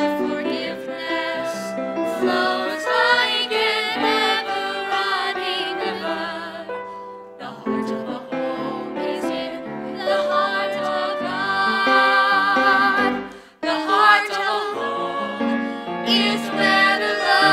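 Music: a grand piano with a slow melody over it that wavers in pitch. The music drops out for a moment about thirteen and a half seconds in, then goes on.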